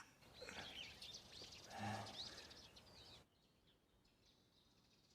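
Faint bird chirping, with a brief low sound about two seconds in; the sound drops suddenly to a fainter chirping background about three seconds in.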